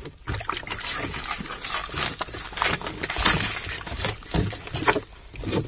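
Wooden stick stirring and scraping cement powder and water around a mixing bucket in quick irregular strokes, breaking up clumps as the cement is mixed into a paste.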